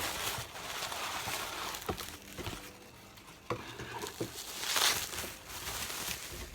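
Rustling and crinkling of packaging as an earring box is handled and opened, with a few small clicks.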